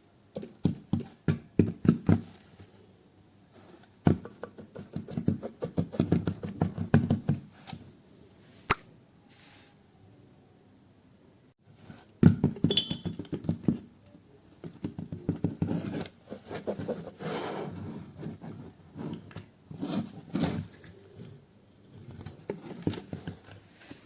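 Close-up handling noise from a toy piggy bank being unboxed: runs of rapid scratching, rustling and clicking from the packaging, with short pauses between them and a single sharp click about nine seconds in.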